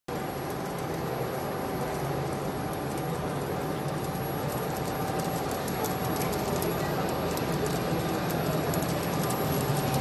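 Rooftop electric truck air conditioner running, a steady whoosh of its blower with a faint steady whine, slowly getting louder.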